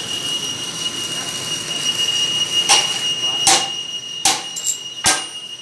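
Workshop noise: a steady high-pitched whine over a hiss, then, from about halfway through, four sharp knocks of a hammer on steel, roughly three-quarters of a second apart.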